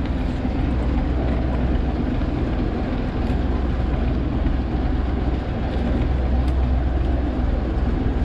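Wooden fishing boat's engine running steadily, a constant low drone.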